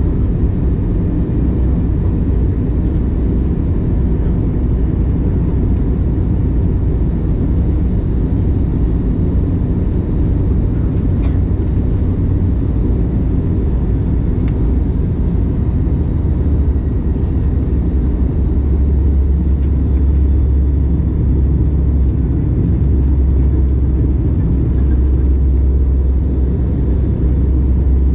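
Steady low rumble of an Airbus A321neo's engines and airflow, heard inside the passenger cabin during descent, the deepest part growing a little stronger about two-thirds of the way through.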